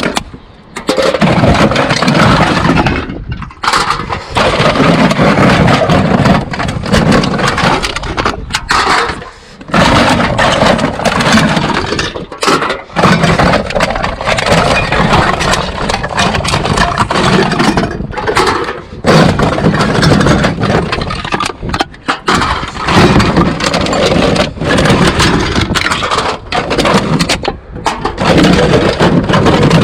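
Drink cans and containers being rummaged through in a recycling bin: loud, continuous crinkling and clattering with a few short pauses.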